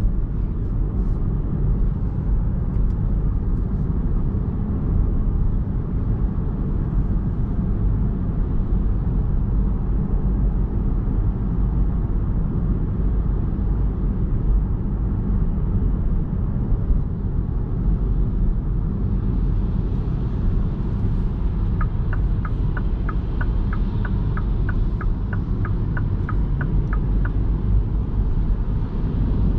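Steady low road and tyre rumble inside the cabin of a 2021 MINI Cooper S E ALL4 Countryman plug-in hybrid on the move. Past the middle, a turn-signal indicator ticks about three times a second for several seconds, then starts again near the end.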